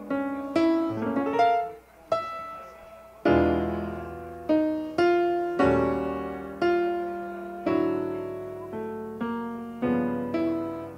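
Solo piano music: single notes and chords struck about once a second, each dying away.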